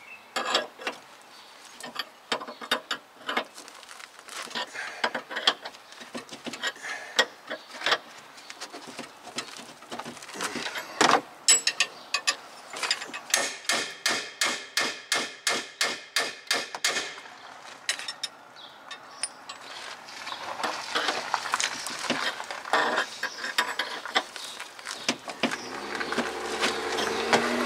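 Ratchet clicking in repeated strokes as it turns the forcing screw of a C-frame ball joint press, loading the press to push out a truck's upper ball joint. About halfway through comes a fast, even run of clicks, about five a second.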